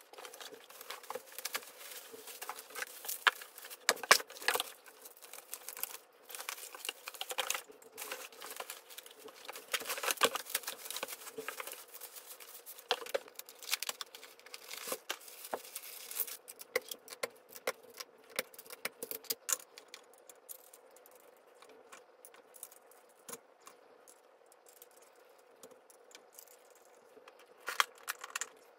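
Unpacking a flat-packed office chair: cardboard, paper and plastic wrapping rustling, crinkling and tearing, with light clicks and clatter as plastic parts and hardware are handled. It is busy over the first half, then quieter with scattered clicks.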